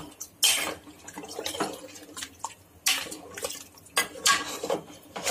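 A metal spoon knocking and scraping against the inside of an aluminium pressure cooker, stirring meat in water. There are about five sharp clinks at irregular intervals, roughly a second apart, with the liquid sloshing.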